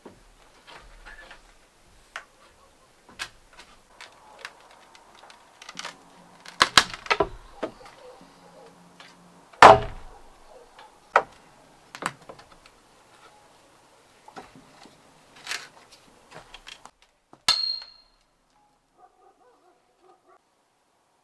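Irregular knocks and clatters of hard objects being handled, with a heavy knock about ten seconds in and a short metallic ring about seventeen seconds in.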